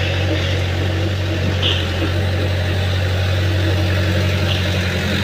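Caterpillar mini excavator's diesel engine running close by, a steady low drone.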